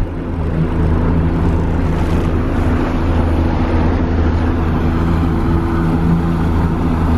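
A 70 hp outboard motor pushes a small boat along at a steady cruise, with a deep even drone. The rush of water and wake along the hull runs underneath it.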